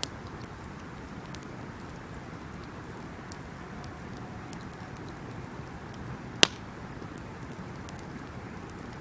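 Wood fire burning with a steady hiss and scattered small crackles, with a sharp pop right at the start and a much louder single pop about six and a half seconds in.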